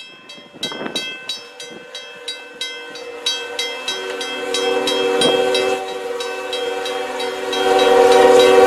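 Railroad crossing bell ringing about three strikes a second, joined about four seconds in by an approaching snow plow train's multi-note horn, which grows louder and takes over near the end.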